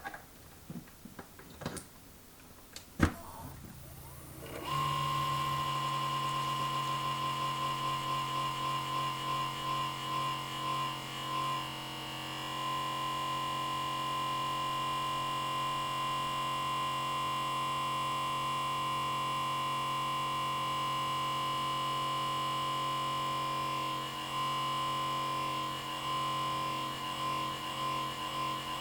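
Small cooling fan in a Comcast Xfinity X1 DVR cable box spinning up at power on, after a few clicks with a sharp one about three seconds in. From about five seconds in it holds a loud, steady hum with a high whine: the fan running at high speed, which it does constantly.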